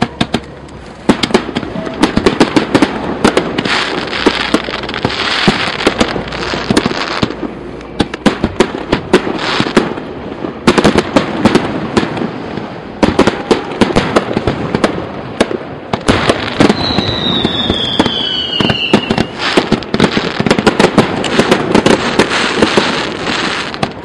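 Fireworks display: aerial shells bursting in a dense run of bangs and crackling pops, with a high whistle falling in pitch about two-thirds of the way through.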